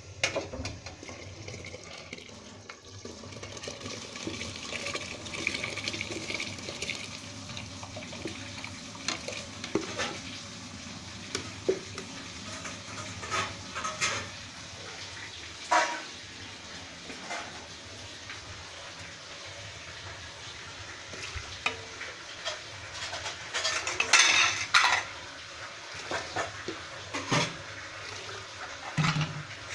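A steel cooking pot being rinsed and handled with water: water sloshing, with scattered clanks of metal utensils against the pot, and a louder run of clatters about three-quarters of the way through.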